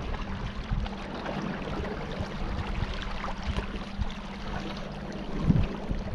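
A small boat under way: its motor hums steadily while water rushes and splashes against the hull, with scattered light knocks.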